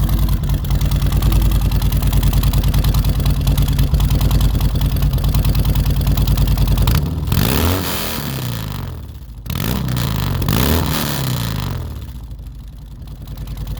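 Harley-Davidson V-twin running through Samson fishtail exhaust pipes with Reaper tips: a steady loping idle, then from about seven seconds in the engine note rises and falls several times.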